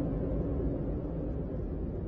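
Steady low rumbling ambience with no distinct events.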